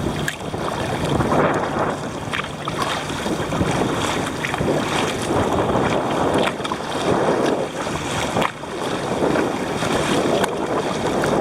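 Kayak being paddled hard through choppy sea: paddle strokes and water splashing and sloshing against the hull, surging every couple of seconds, with wind buffeting the microphone.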